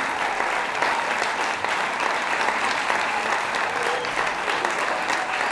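Audience applauding, a steady dense patter of clapping.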